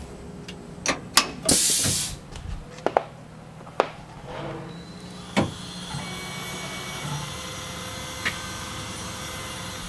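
Metal clicks and knocks as a 1/8 inch twist drill is fitted and tightened in the drill chuck of a Tormach PCNC 1100 CNC mill, with a short hiss about a second and a half in. From about six seconds in, a steady electric whine over a low hum as the mill's head moves the drill down toward the workpiece.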